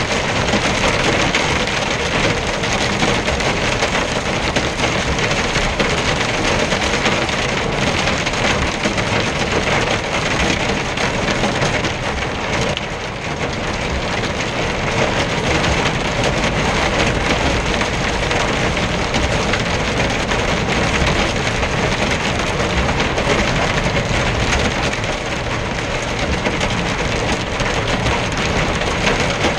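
Heavy rain drumming on a truck cab's windscreen and roof while the truck drives on a wet road, with engine and tyre noise underneath. Steady throughout, easing briefly about thirteen seconds in.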